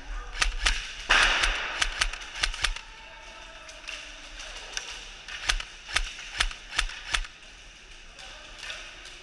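Airsoft guns firing single shots in quick succession, sharp cracks at about three a second. There are two runs: one in the first three seconds, with a short hiss about a second in, and another between about five and seven seconds in.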